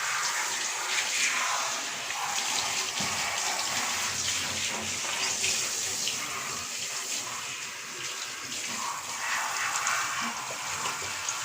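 Running water splashing steadily in a bathtub as a dog is washed.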